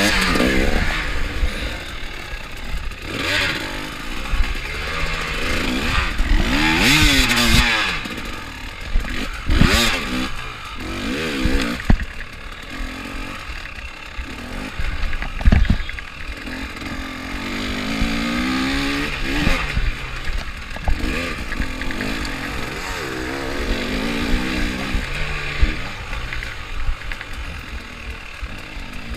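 Enduro dirt bike engine revving up and falling back again and again as it is ridden hard over a rough sandy track, heard from a camera mounted on the bike. Several sharp knocks are heard midway, from the bike hitting bumps.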